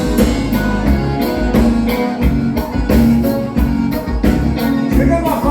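A gaúcho dance band playing music in the bugio rhythm, with drum kit and guitar over a steady beat.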